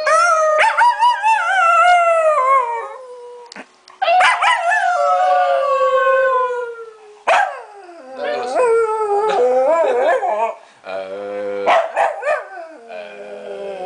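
Small dog howling in a run of long, wavering howls, each sliding down in pitch, with a shorter, lower-pitched howl near the end.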